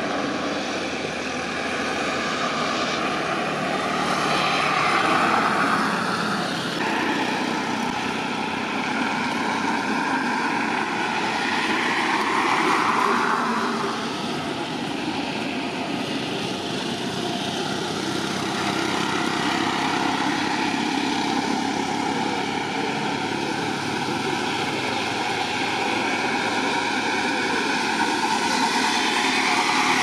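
Twin-engine wide-body jet airliner at takeoff thrust on its takeoff roll and climb: a steady jet engine noise with a whine that swells and shifts in pitch a couple of times.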